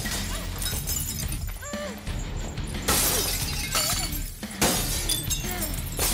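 Hanging glass jars smashing and shattering onto a concrete floor, with two loud crashes about three seconds in and just before five seconds, and broken glass scattering between them. A low droning film score runs underneath.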